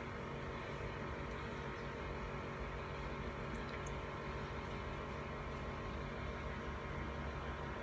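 Steady mechanical hum with water bubbling: a small pump running and churning the water in a plastic tub.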